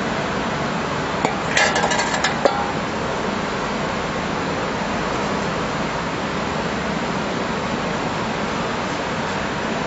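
Steady industrial background noise in a furnace workshop. About a second and a half in comes a brief run of sharp metallic clinks and taps, the last the sharpest.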